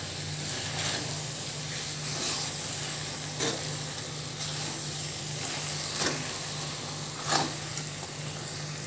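A metal spoon stirs tamarind and melting jaggery in a hot iron kadai over a low sizzle, with a few soft scraping strokes against the pan.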